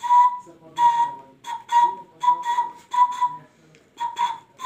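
A small traditional hand-held wind instrument blown in about nine short, breathy, whistle-like notes, nearly all on the same high pitch, with brief gaps between them.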